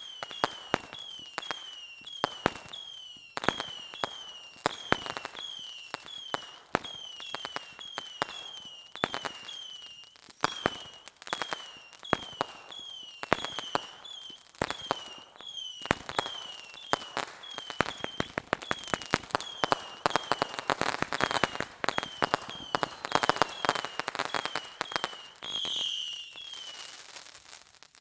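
Fireworks going off in quick succession: sharp pops and cracks mixed with short high whistles that drop in pitch, about two a second. A denser crackle builds in the second half.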